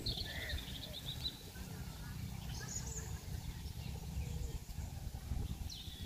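Wind rumbling on the microphone, with a few short, high bird chirps in the first half.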